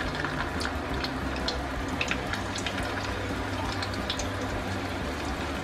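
Slices of salami frying in oil in a pan: a steady sizzle with scattered small pops and crackles.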